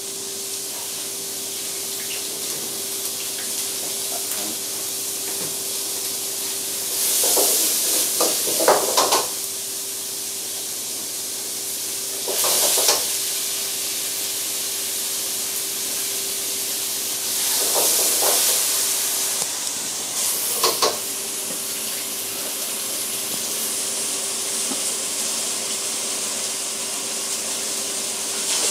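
Stir-frying at gas wok burners: a steady hiss with a constant hum underneath. It is broken every few seconds by loud bursts of sizzling and the clatter of a metal ladle or spatula against the wok.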